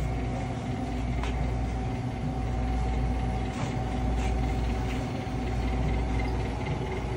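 Steady low machinery hum with a thin high whine running over it, from the store's refrigerated display cases and ventilation, with a few faint ticks.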